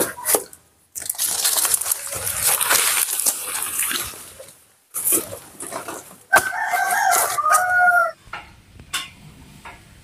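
Rustling and crunching of leaves and brush as undergrowth is cut back with a blade. About six seconds in, a rooster crows once, for just under two seconds.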